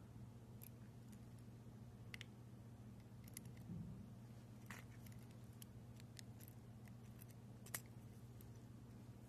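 Faint scattered metallic clicks and ticks from a handled metal keychain lighter and its key ring and chain, the sharpest about three-quarters of the way in, over a low steady hum.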